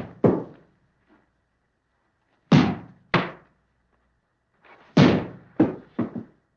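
A series of heavy slams or thuds in groups. Two come a quarter second apart at the start, two more half a second apart about two and a half seconds in, and a quick cluster of three or four near the end. Each one dies away quickly.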